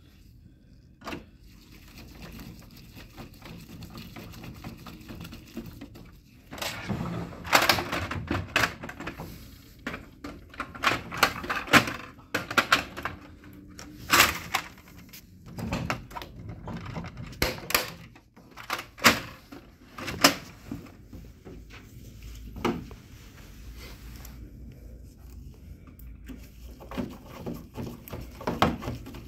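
Plastic covers and panels of an HP LaserJet Pro 4001n laser printer being handled and clicked back into place during reassembly: a run of sharp clicks, knocks and rattles that starts several seconds in, is densest through the middle, and thins out to occasional clicks near the end.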